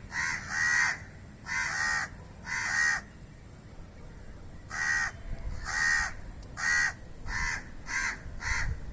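Crow cawing: about ten short, harsh caws, four in the first three seconds, then a pause of about two seconds, then a quicker run of six.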